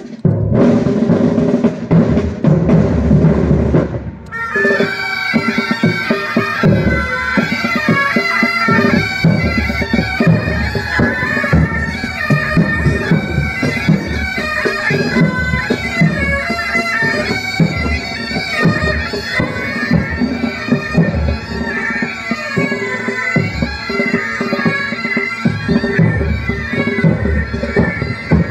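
Military pipe band playing: drums alone for about the first four seconds, then the bagpipes strike in, a steady drone under the chanter melody, with the drums keeping time beneath.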